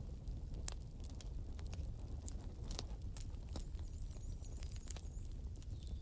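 Fire burning: a steady low rumble with scattered sharp crackles and pops.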